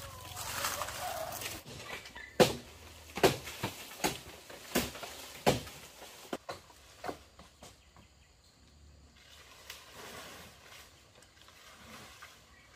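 A run of sharp knocks or strikes, six loud ones spaced a little under a second apart, then a few lighter taps that die away.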